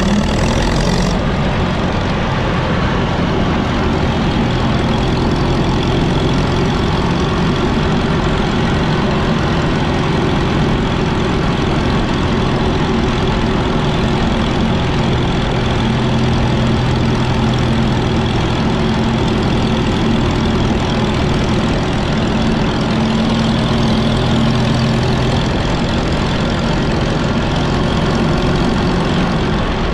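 Minneapolis-Moline ZB tractor's four-cylinder engine running steadily under governor control while the tractor drives along.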